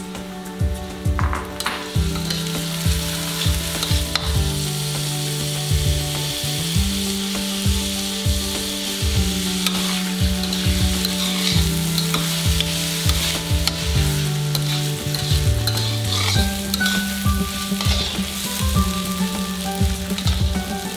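Washed raw rice sizzling in a little oil in a steel wok while a metal ladle stirs and scrapes it around the pan. Soft background music with low held notes runs underneath.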